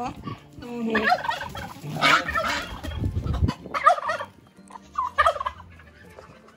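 Domestic turkey gobbling in several separate bursts.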